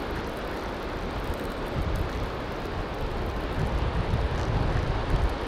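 Wind buffeting the microphone with low, uneven rumbles over a steady wash of surf noise.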